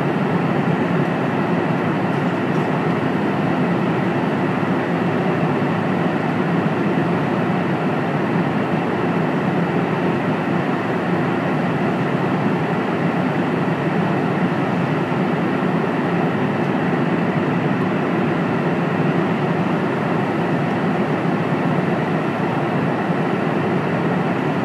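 Steady airplane cabin noise in flight: an even, unchanging rush of engine and airflow sound.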